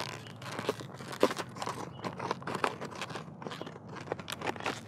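Scissors cutting into a stiff clear plastic clamshell blister pack: an irregular run of crunching snips and crackles of the plastic.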